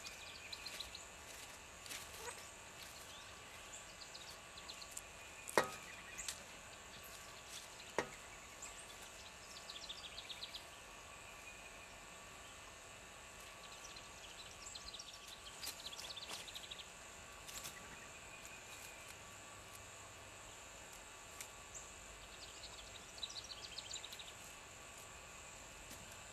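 Woodland ambience with a steady high insect drone. A few sharp knocks stand out, the loudest about five and a half and eight seconds in, and short bursts of rapid high ticking calls come several times.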